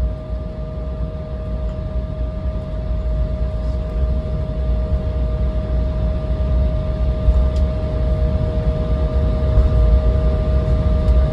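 Cabin noise of a JAL Embraer E170 taxiing after landing: the engines running at taxi power with a deep rumble and a steady whine, slowly growing louder.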